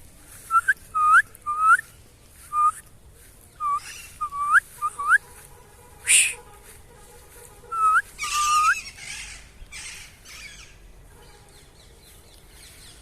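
A flock of parrots calling: a string of short, upward-sweeping whistled calls in quick clusters, mixed with a few harsher, rasping squawks.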